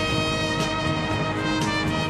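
Instrumental enka karaoke backing track playing its introduction, led by brass over a steady beat.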